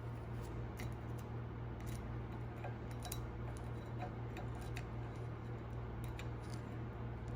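Scattered small metal clicks and taps as tiny tapered valve keepers are worked into place on a valve stem with a magnetic screwdriver, over a steady low hum.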